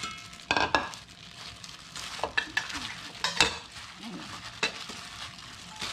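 Shredded radish salad (musaengchae) being tossed by a plastic-gloved hand in a stainless steel bowl: a wet, crackling rustle of the shreds and glove, with a few louder scrapes and knocks against the bowl at irregular moments.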